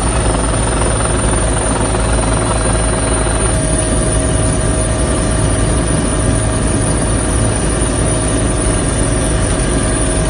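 Fire-service helicopter in flight, heard from inside the cabin: a loud, steady engine and rotor drone with a fast low rotor beat and a steady whine over it.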